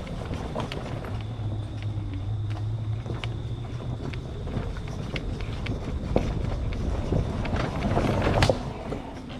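Christini electric ATV riding a wooded trail: a low hum from its four hub motors with scattered knocks and clicks of the tyres and chassis over rough ground, the loudest knock near the end.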